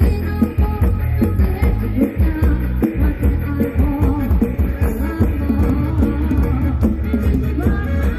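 Loud live Isan rock from a rot hae sound-truck band, with heavy bass and drums under a melody line and singing, heard through the camera's microphone.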